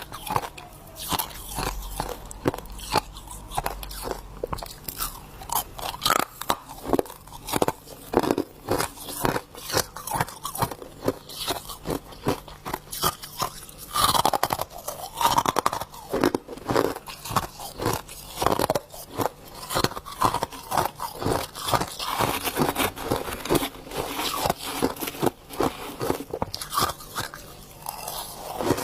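Humidifier frost being bitten and chewed close to the microphone: a dense, irregular run of crisp crunches.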